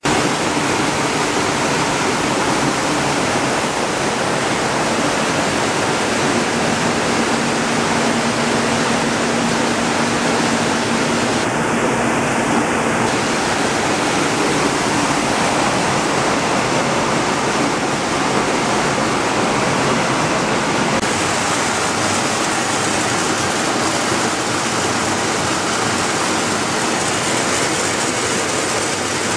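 Belt-type color sorting machine running while sorting watermelon seeds: a steady, even rushing noise with a faint low hum in it.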